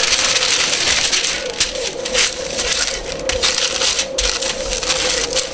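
Baking paper crinkling and rustling as it is handled and pressed into a round metal baking pan, with a steady hum from a bread machine kneading dough underneath.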